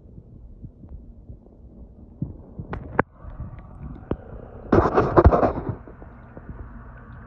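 Muffled underwater rumble and low throbbing thumps heard through an iPhone 11 Pro Max's microphone submerged in a reef aquarium. There are two sharp knocks near three seconds, and a louder, brief rush of noise about five seconds in as the phone moves fast through the water.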